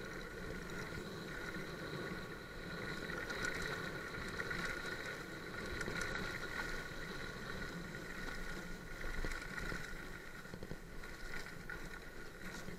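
Mountain bike rolling fast downhill on a dirt and leaf-litter trail: continuous tyre noise and rattling over the rough ground, with a steady high whine held throughout and small clicks and knocks.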